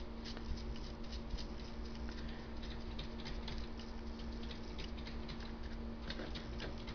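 Light, irregular crinkling and tapping as a paintbrush dabs acrylic paint onto crumpled plastic wrap over wax paper, with a steady low hum underneath.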